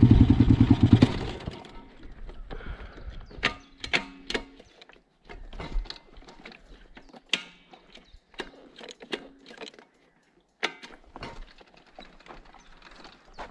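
KXD 612 Pro pit bike's engine running loud under throttle, then dropping away about a second and a half in. Irregular clicks, clunks and short rattles from the bike follow.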